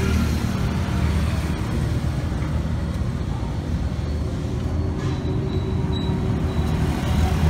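Massey Ferguson 398's turbocharged Perkins diesel engine idling steadily, a low even rumble.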